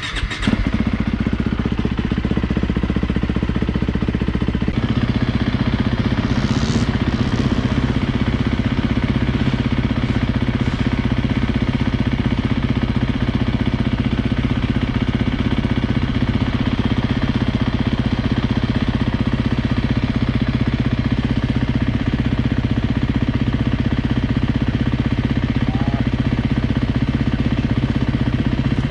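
A dirt bike engine starts and then runs steadily at an unchanging pitch.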